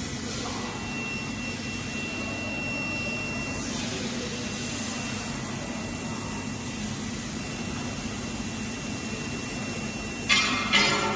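Steady machine hum with a thin, high, steady whine that starts and stops several times, as the welding machine's axes are jogged into position. Near the end come two short, loud, noisy bursts.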